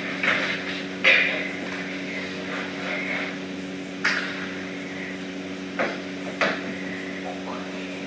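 Broom sweeping a hard floor in short brushing scrapes, with a few sharp knocks, the loudest about a second in and others around four and six seconds, over a steady low hum.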